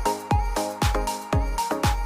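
Background electronic dance music with a steady kick drum about twice a second under held synth notes.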